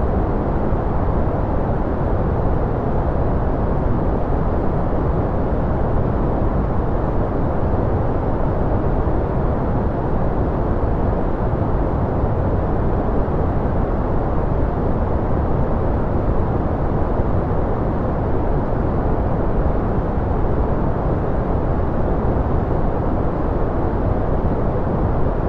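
Steady, unchanging generated noise track sold as white noise: an even rush that is full in the low end and dull in the treble.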